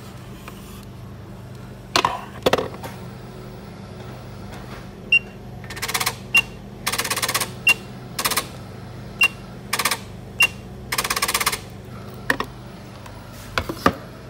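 Juki LK-1900B bartacking machine being worked from its operation panel: short high key beeps, each followed by a brief buzzing movement of the machine's mechanism, over a steady low hum, with a few sharp knocks of handling.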